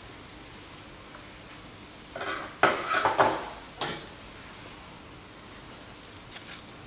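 A few short clinks and knocks of kitchenware, from about two to four seconds in, as tomatoes are handled against a glass bowl and a steel colander. A faint steady hum underneath.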